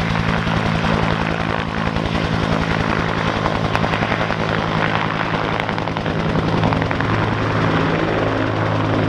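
Vietnam-era military helicopter running on the ground after start-up, throttled up. Its rotor blades beat fast and evenly over a steady engine tone and a wash of rotor noise.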